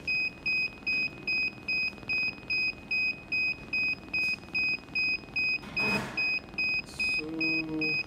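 Electronic beeper sounding a steady run of short high-pitched beeps, about two and a half a second.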